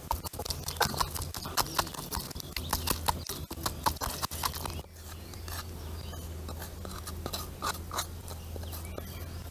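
A wooden pestle pounding a chilli-and-herb paste in a terracotta clay pot: a quick, irregular run of knocks and crunches. After about five seconds the strokes thin out to a few scattered knocks and scrapes as the paste is spooned out of the pot.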